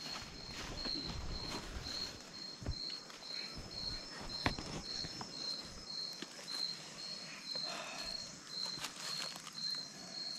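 A cricket chirping steadily at night, a short high-pitched pulse repeated about two and a half times a second, with a few soft clicks and rustles.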